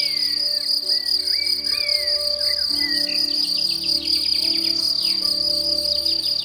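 A continuous high, pulsing insect trill of the cricket kind, with a few short gliding chirps over it and soft music of held notes underneath.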